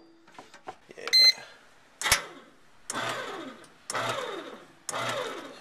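Breadman Ultimate bread machine being started: a short electronic beep about a second in, then a click, then the kneading paddle's motor running in short pulses about once a second as it begins mixing the dough.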